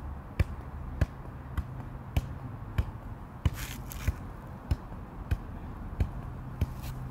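A soccer ball being juggled, kicked up again and again with the foot: about eleven sharp thuds, evenly spaced at a little under two a second.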